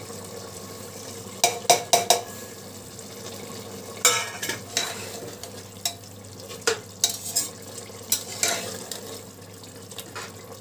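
Metal slotted spoon scraping and knocking against the inside of an aluminium pressure cooker as a thick keema masala is stirred, in irregular strokes, over a steady low sizzle of the cooking mixture.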